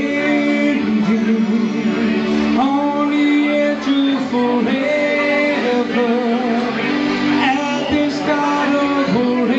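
A man singing with instrumental accompaniment, holding long notes that bend between phrases.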